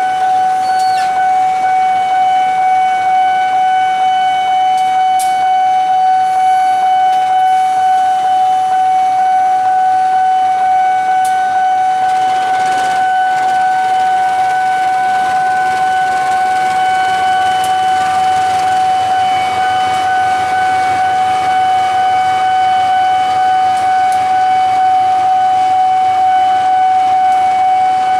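Railway level-crossing warning alarm sounding one steady, unbroken tone. A diesel locomotive's low rumble comes in underneath about halfway through.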